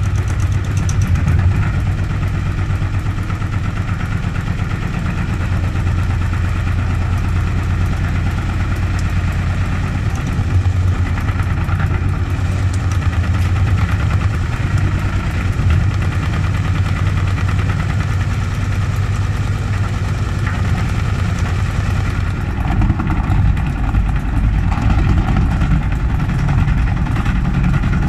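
Gorenje washing machine spinning an unbalanced load in test mode: the drum and motor run with a steady, loud low drone, the whole machine vibrating.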